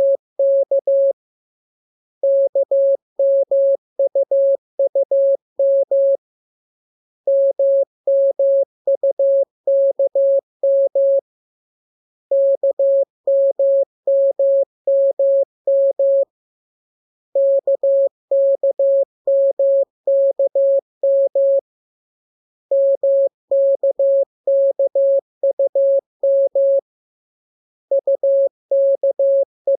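Morse code practice tone, a single steady pitch keyed into dots and dashes, sending the lesson's letters K, M and U in groups of about four seconds with pauses of about a second between them.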